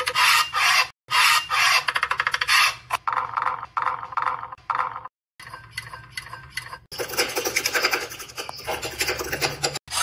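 Close-up food-prep sounds in short takes broken by brief silences. A knife cuts through a tomato on a plate, and a spoon stirs chopped onion and tomato in a bowl, both with crisp, rapid rasping strokes.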